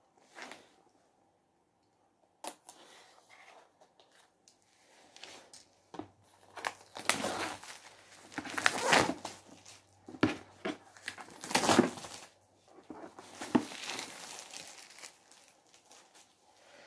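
Plastic shrink-wrap being torn and peeled off a new board game box: irregular crinkling and tearing that starts a couple of seconds in and is loudest around the middle.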